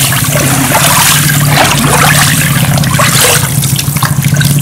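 Water sloshing and splashing in many small irregular splashes as hands knead mashed palm fruit in a water-filled wooden trough, the stage of working the oil out of the pulp. A steady low hum runs underneath.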